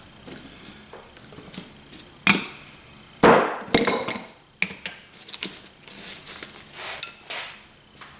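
Scrap metal parts from dismantled boiler circulator pumps clanking and knocking as they are handled and set down, a series of separate knocks with the loudest, ringing clank about three seconds in.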